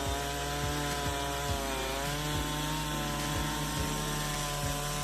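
Two-stroke chainsaw running at high revs while cutting through a thick tree trunk; its pitch sags slightly under load about two seconds in, then settles.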